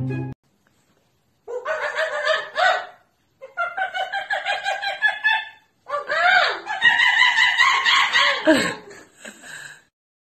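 High-pitched cackling in three bursts of quick repeated pulses. The last and longest burst swoops up and then falls away in pitch.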